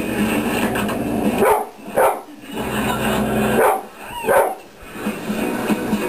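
A dog barking, about four short barks, over the steady sound of a television programme.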